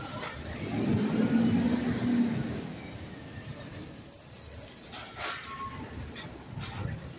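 Garbage truck's engine running close by, swelling to a steady low drone for about a second and a half near the start, then easing back.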